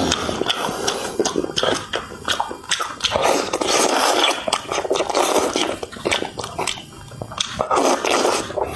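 Close-miked slurping, sucking and chewing of braised fish in a spicy sauce, with wet smacking clicks; a long slurp runs through the middle and a shorter one comes near the end.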